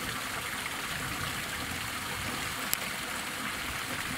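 Steady rush of flowing water, with one short sharp click about two-thirds of the way through.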